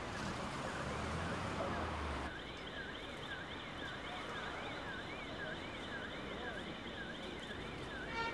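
Emergency vehicle siren wailing quickly up and down in pitch, about three swings every two seconds. For the first two seconds it is faint under a louder low rumble, then it stands out clearly.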